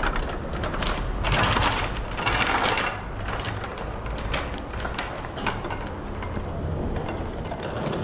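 Metal luggage cart rolling and rattling over the terminal floor, with the hum of a large hall behind it; the rattle is strongest in the first three seconds.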